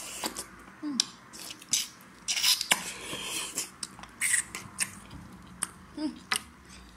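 Close-up mouth sounds of eating saucy lamb knuckles by hand: chewing, wet lip smacks and finger-sucking, heard as a string of short clicks and smacks.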